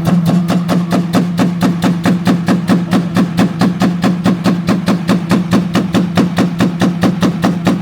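Car engine held against a two-step launch-control rev limiter: a steady high engine note cut by rapid, even pops and bangs, about six a second.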